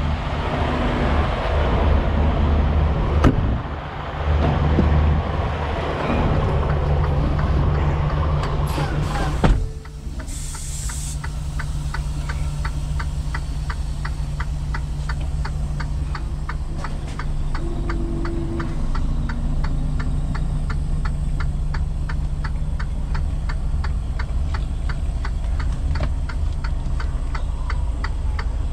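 Semi truck's diesel engine running steadily, with louder, busier cab noise for the first nine seconds. About nine and a half seconds in there is a sharp knock and the noise drops, followed by a short air hiss. After that the engine idles while an indicator clicks about three times a second.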